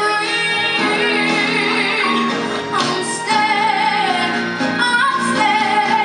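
An 11-year-old girl sings a soul ballad into a handheld microphone over instrumental accompaniment. She holds long notes that waver in pitch.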